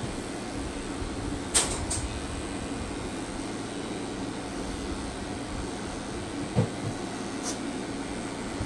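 Electric pet-grooming tool running steadily, its motor giving an even hum and hiss. Several sharp clicks or taps sound about a second and a half in, again at two seconds, and twice more near six and a half and seven and a half seconds.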